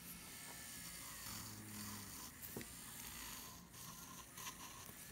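Electric nail drill fitted with a sanding cap bit, running faintly and rasping against the skin around the fingernail, buffing off dead skin and cuticle.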